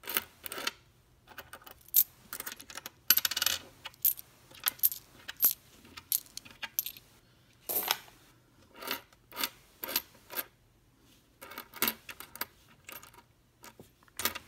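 Copper Lincoln cents clicking and clinking against each other and a wooden tabletop as they are slid off a stack one at a time, with a short, denser clatter of coins about three seconds in.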